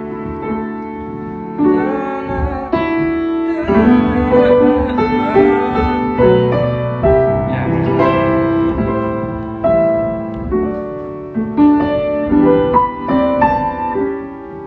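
Slow piano music: held chords with a melody moving over them.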